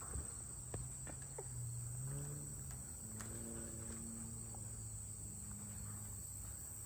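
Steady high-pitched chirring of insects, with a low droning hum from about a second in until near the end. A few sharp clicks in the first second come from the rhesus macaque climbing the cage's wire mesh.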